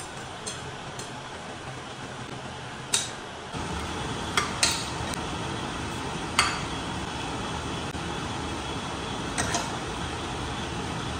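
A handful of sharp, separate clinks of a utensil against pots and dishes, each ringing briefly, over a steady background noise that gets louder about three and a half seconds in.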